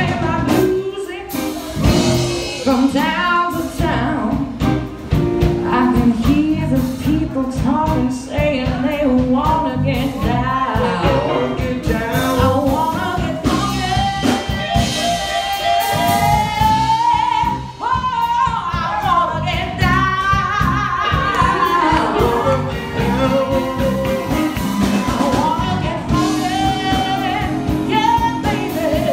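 Live blues band playing: a woman sings lead over electric guitars, bass and a drum kit, with her voice wavering and bending on held notes.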